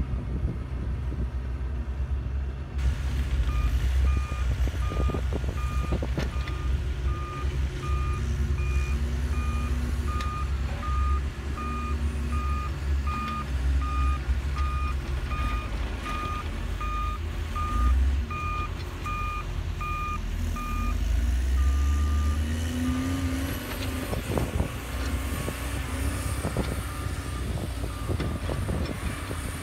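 Diesel earthmoving machines, a wheel loader and a mini excavator, running with a steady low rumble, while a reversing alarm beeps evenly from about three seconds in until about twenty-one seconds and then fades out. Near the end an engine revs up briefly and there are a few knocks.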